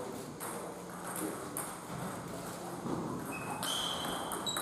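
Table tennis rally: the celluloid-type ball clicking sharply off paddles and table in an uneven series of ticks, with a few brief high squeaks in the second half.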